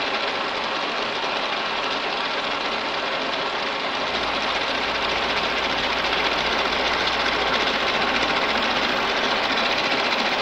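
Milling machine running with an end mill cutting a step into a metal workpiece: a steady, dense cutting noise. A low rumble joins about four seconds in, and the sound grows slightly louder after that.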